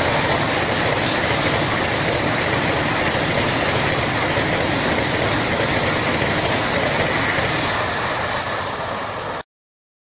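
Train 18 electric multiple-unit trainset passing at speed: a steady rush of wheel and air noise that eases slightly, then cuts off suddenly about nine and a half seconds in.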